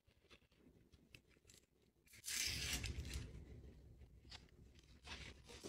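Paperboard fries carton and plastic sauce cup being handled: faint light clicks and rustles, then a sudden louder rustle of paper about two seconds in that lasts about a second before easing off.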